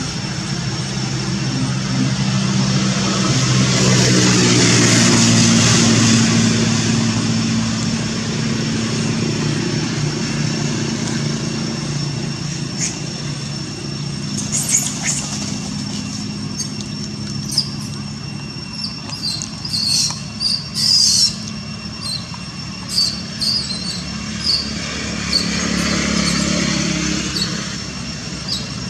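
Motor traffic passing: a steady engine hum that swells and fades as one vehicle goes by early on and another near the end. Short high chirps come and go through the second half.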